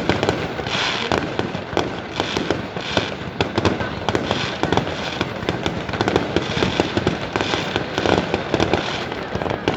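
Fireworks display going off: a dense, unbroken run of crackling and rapid pops, many per second, with no pause.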